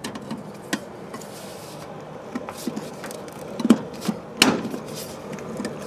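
Clicks and knocks of a chrome headlamp rim and lens unit being worked back into its headlight bowl by hand on a 1951 Lanchester LD10, the two loudest knocks coming a little past halfway through.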